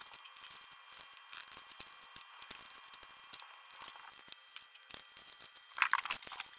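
Scattered light clicks, taps and rustles of hands handling paper envelopes and sticker sheets, with a louder burst of crinkling about six seconds in.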